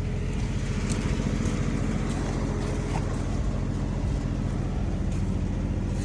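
Engine of a piece of compact heavy equipment running steadily at idle-like speed.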